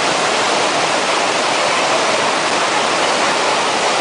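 Loud, steady rush of a waterfall pouring into a churning pool of whitewater.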